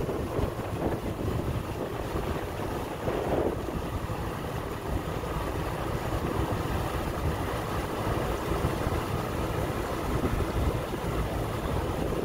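Steady noise of a boat under way, with its engine running, its wake churning the water behind it, and wind buffeting the microphone.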